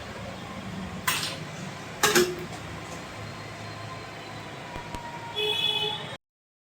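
Steady blowing hiss of an SMD hot air rework station, with two sharp clacks about one and two seconds in. A short tone sounds near the end, then the sound cuts off suddenly.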